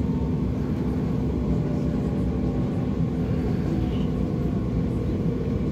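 SGP Type U11 subway train heard from inside the car: a steady low rumble of wheels and running gear with a constant hum as it pulls into a station.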